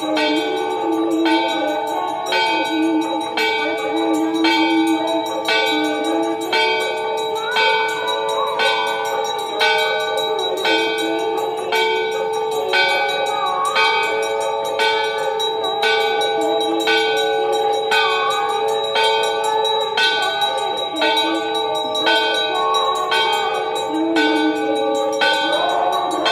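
Temple bells ringing during an aarti, struck in a quick, steady rhythm, their ringing running together into a continuous hum.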